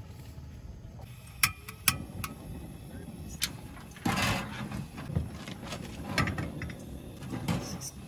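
A small portable butane camping stove and its gas canister being handled: a few sharp metallic clicks, then a run of clattering and scraping.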